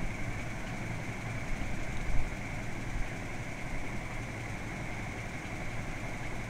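A steady low mechanical hum in the background, with no speech.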